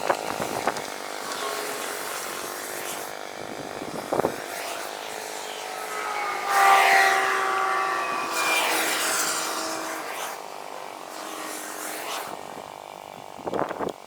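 1968 John Deere 110 garden tractor's engine running while the tractor is driven, its note rising and loudest about halfway through, then easing off.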